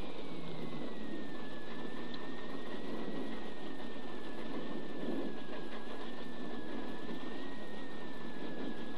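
Alfa Romeo 75's V6 engine idling steadily, heard from inside the stripped rally-car cabin, with a thin high whine wavering slightly over it.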